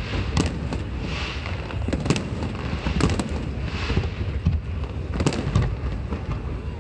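Fireworks display going off: a run of sharp bangs and crackling reports, several in quick succession at times, over a continuous low rumble of distant explosions.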